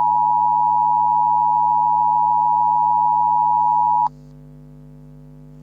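Emergency alert broadcast tone: a loud, steady electronic tone at one pitch that cuts off suddenly about four seconds in. A quieter steady low hum remains after it.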